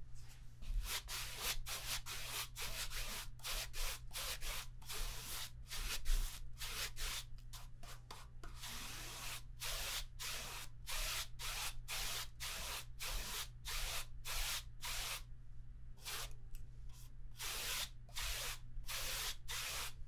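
Paintbrush bristles brushing back and forth across a stretched canvas: a quick run of dry, scratchy strokes, about two or three a second, with a couple of short pauses.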